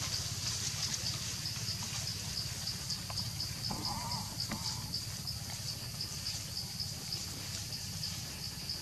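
Insects buzzing outdoors in a steady, evenly pulsing high chorus, over a low rumble. A short warbling animal call comes in about four seconds in.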